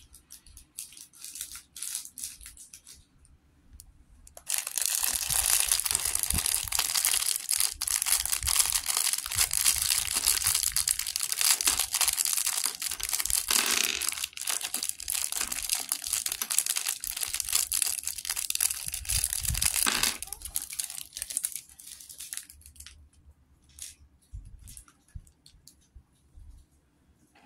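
LEGO minifigure blind bag crinkling loudly for about fifteen seconds as it is handled and squeezed to push the parts inside away from where it will be cut. Before and after, there are only scattered light clicks.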